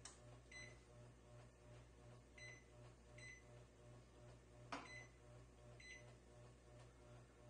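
Microwave keypad beeping as its kitchen timer is set: four short, high beeps spread out, with one sharp click near the middle.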